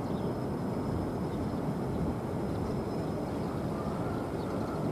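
Airbus A320-family jetliner on final approach with landing gear down, its engines making a steady low rumble of jet noise.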